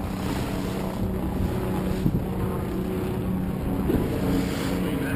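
Motorboat engine running steadily with a low hum, with wind buffeting the microphone.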